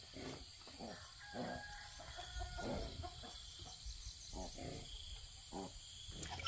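Faint clucking and crowing of chickens, heard as a few short, soft calls.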